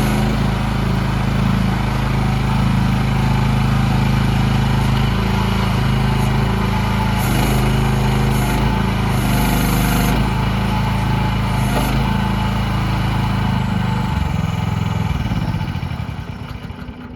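The small diesel engine of a CFG MX15RX mini excavator running steadily, with a few brief hissing bursts in the middle. Near the end it is shut off and winds down to a stop.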